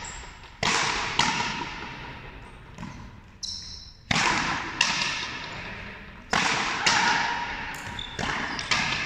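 Frontenis rally: rackets striking the rubber ball and the ball smacking against the front wall. Sharp hits come mostly in pairs about half a second apart, three times, then once more near the end, with a few softer knocks between. Each hit rings on in the long echo of the covered court.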